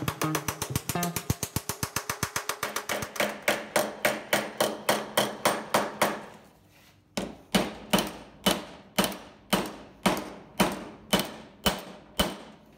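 Hand hammer beating the edge of a sheet-metal panel over a clamped wooden template, folding the flange over. Quick light taps, about ten a second, for the first few seconds give way to heavier, ringing blows about three a second. After a short pause in the middle the blows carry on at about two a second.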